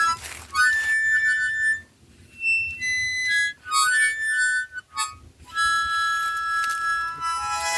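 Harmonica playing a solo melody: short reedy notes, a brief pause about two seconds in, then a long held note before the tune drops lower near the end.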